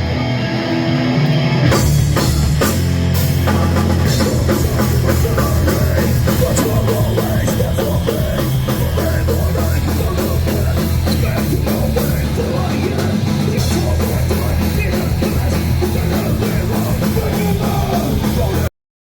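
Hardcore band playing loud, with distorted electric guitars, bass and drums. A thinner guitar passage opens, the full band comes in about two seconds in, and the sound cuts off abruptly just before the end.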